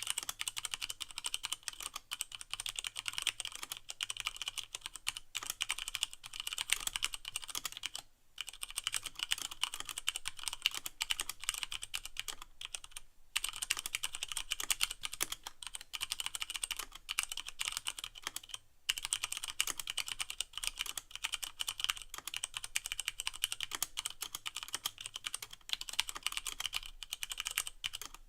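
Fast continuous typing on a Leopold FC660M mechanical keyboard with Cherry MX Brown switches and no O-rings, keys bottoming out with a clacky sound. The typing stops briefly three times, about 8, 13 and 19 seconds in.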